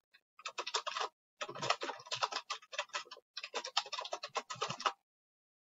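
Rapid typing on a computer keyboard: a run of quick key clicks with two short pauses, stopping near the end.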